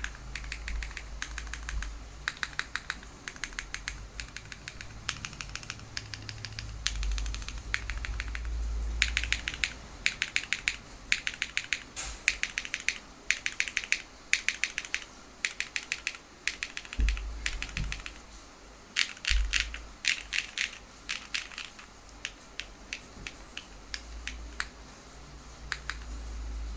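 Stello65 gasket-mount mechanical keyboard being typed on in quick runs of keystrokes with short pauses. The tactile franken switches (KNC green jacket stems in Cherry brown housings) clack on an aluminium plate, with GMK Denim keycaps and no case or plate foam.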